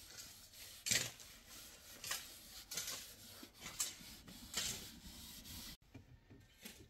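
Several short rubbing or scraping sounds, four in all, over a low background hiss, cut off abruptly near the end.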